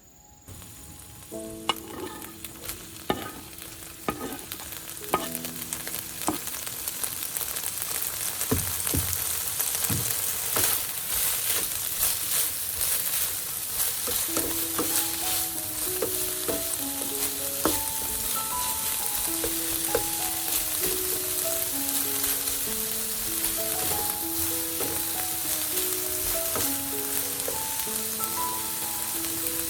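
Food frying in a hot pan, a steady sizzle that grows louder over the first several seconds, with a few sharp clicks and taps of a utensil early on.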